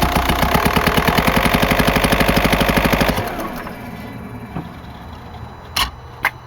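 Volkswagen Jetta TDI 1.9-litre four-cylinder pumpe-düse diesel idling with a loud, fast, even rapping from a failed camshaft, not an exhaust leak. About three seconds in the engine shuts off and the running dies away, followed near the end by two short sharp clicks.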